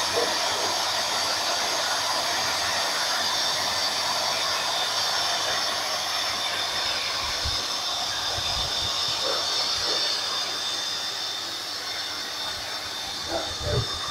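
Orange high-velocity pet force dryer running steadily, blowing air through its hose with a constant rushing hiss and a thin high whine. A few soft low bumps come in around the middle and near the end.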